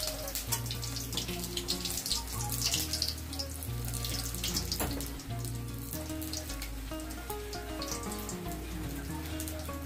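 Cumin seeds, a dried red chilli and a bay leaf frying in hot oil in a wok, with many small crackles and a soft hiss. Background music with a slow bass line plays under it.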